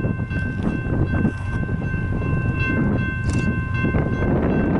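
Distant BNSF freight locomotive horn sounding in long held tones as the train approaches a road crossing, over a low rumble of wind on the microphone.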